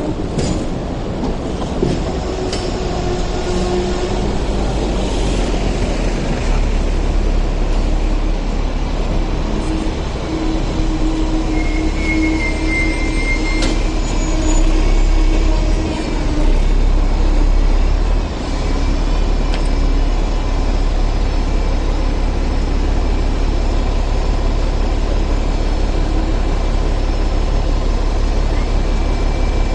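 Hong Kong double-decker electric trams rolling past close by: a steady low rumble of steel wheels on the tracks, with brief squealing tones from the wheels near the middle.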